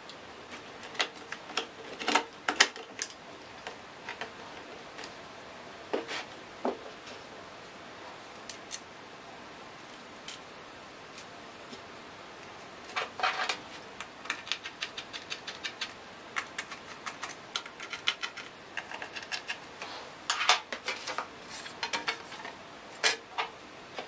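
Irregular clicks, taps and clatter of hard plastic and metal laptop parts being handled as a Dell Precision laptop is put back together: the SSD in its caddy going into the drive bay and the bottom cover panel being fitted back on, with small screws picked up. Quick runs of light ticks come in clusters around the middle and near the end.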